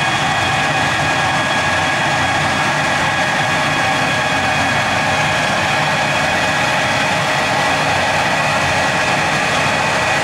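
A machine running steadily: an even mechanical hum with several steady high-pitched tones over it.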